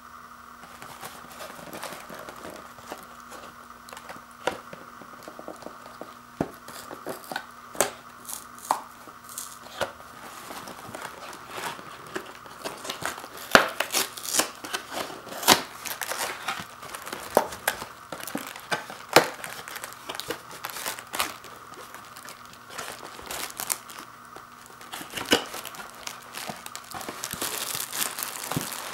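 Cardboard Pop-Tarts box being torn open by hand along its perforated top, a run of sharp rips and snaps of paperboard, loudest midway. Near the end comes the crinkle of the foil-wrapped pastry pouches being pulled out of the box.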